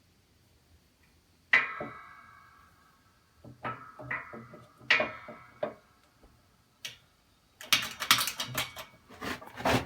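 Loose steel parts and tools clanking against each other and against the steel frame of a hydraulic shop press. There is a handful of sharp strikes that ring on briefly, then a busier run of rattling clatter near the end.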